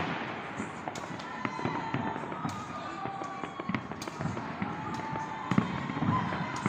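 Many fireworks going off together: a dense run of scattered bangs and crackles, with a few thin whistles over it and one louder bang about five and a half seconds in.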